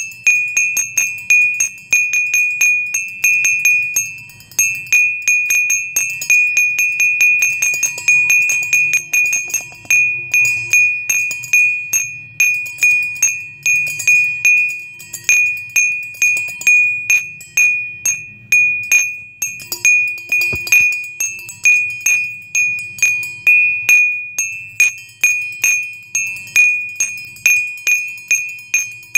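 Background music of wind chimes: a bright ringing tone struck over and over, several times a second, each strike fading quickly.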